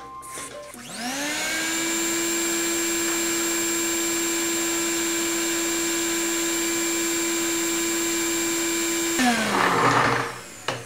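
Canister vacuum cleaner switched on, its motor whine rising to a steady pitch and running evenly. About nine seconds in it is switched off, and the whine falls as it winds down, with a brief rush of noise.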